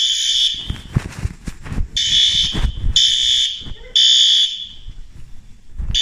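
School fire alarm horns sounding the temporal-three evacuation pattern: three short high beeps about a second apart, then a pause of about a second and a half, repeating. The alarm was set off by dust reaching a detector, a false alarm.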